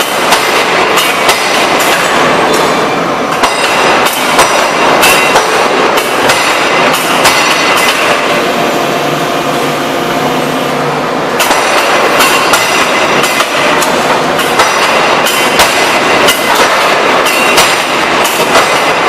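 Hydraulic open-die forging hammer (3-ton) striking hot steel over and over in a run of heavy blows, over a continuous loud din of hydraulics and shop noise; the blows let up for a few seconds near the middle, then resume.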